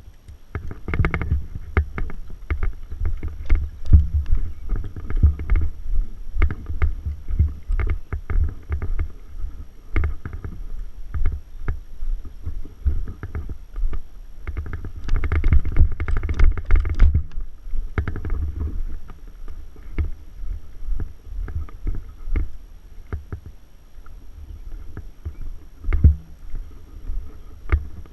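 Irregular low thumps and knocks close to the microphone, mixed with sharp clicks, densest for a couple of seconds around the middle: movement and handling noise.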